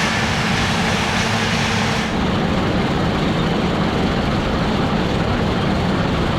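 New Holland combine harvester running steadily under load while harvesting wheat. About two seconds in the sound turns suddenly duller, with less hiss.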